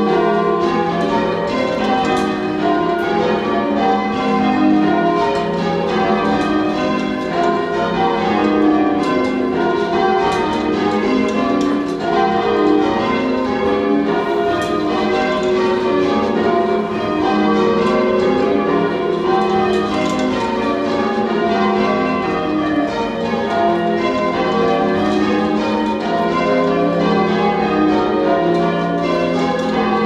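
Church tower bells rung full-circle in English change-ringing style by a band of ringers on ropes. The bells strike one after another in a steady, unbroken run of overlapping rings, heard from the ringing chamber beneath them.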